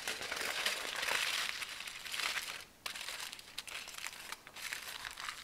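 Aluminium foil crinkling as it is folded and tucked by hand into a packet. The crinkling is busiest for the first two and a half seconds, stops briefly, then goes on in lighter, sparser crinkles.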